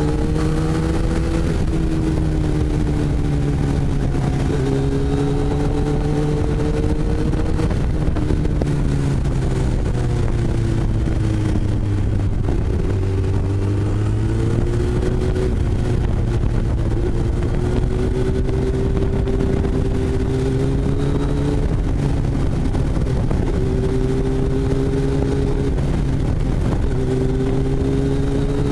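Kawasaki ZX-10R inline-four sports bike engine under way, its note climbing and dropping back in steps with gear changes, sagging around the middle as the bike slows, then holding steadier with smaller rises. It is heard from a helmet-mounted camera over a steady low rush of noise.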